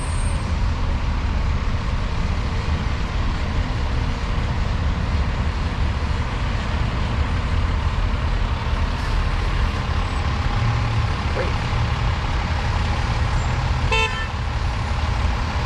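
Steady city street traffic noise with a heavy low rumble from passing vehicles, and one short car horn toot near the end.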